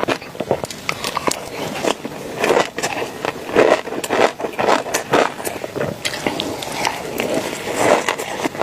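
Close-miked eating sounds: crunchy chewing with irregular sharp clicks, crackles and scrapes.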